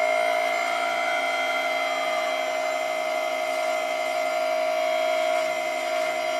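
Electric hydraulic pump of an RC Volvo EC480D excavator giving a steady whine while the arm swings and lowers a grab-held block. It is loud because the model has not yet been fitted with the newer silent pump.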